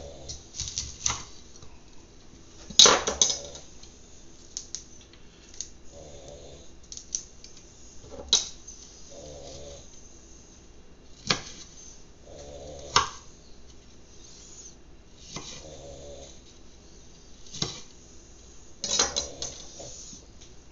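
Kitchen knife chopping broccoli on a cutting board: irregular sharp knocks of the blade on the board every second or two, the loudest about three seconds in, with softer crunches of the florets being cut between them.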